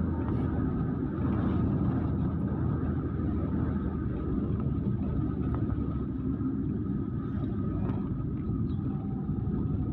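A car driving along a road: a steady low rumble of engine and tyre noise.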